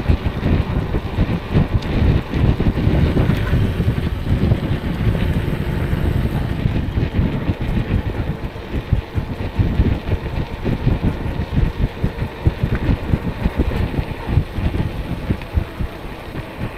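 Wind buffeting the microphone while riding an e-bike: a loud, unsteady low rumble that flutters rapidly and eases slightly near the end.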